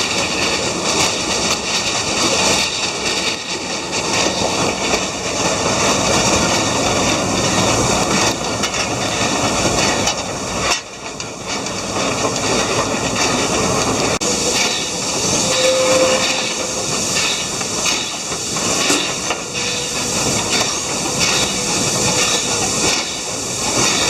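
Steam train running, with a steady hiss of steam over the noise of the moving train.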